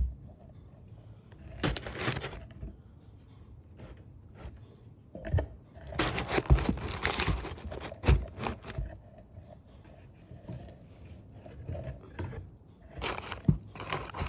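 Crumpled brown paper crinkling and rustling as elephant ear bulbs are set down on it in a paper-lined cardboard box, in several short bouts with a few dull knocks of the bulbs landing.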